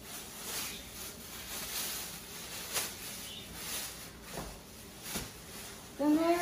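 Plastic wrapping rustling and crinkling as a wrapped office chair seat and backrest are handled and lifted, with a few sharp clicks. A voice starts just before the end.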